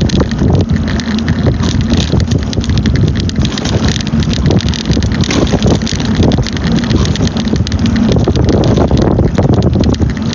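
Mobility scooter travelling at about walking pace: a steady low rumble of motor and wheels, with wind on the phone's microphone.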